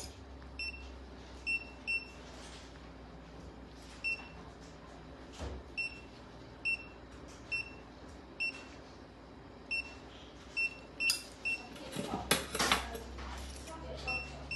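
Anaesthesia patient monitor beeping: short, high, same-pitched beeps about once a second, tracking the cat's pulse under surgery. Near the end there is a brief burst of rustling and handling noise.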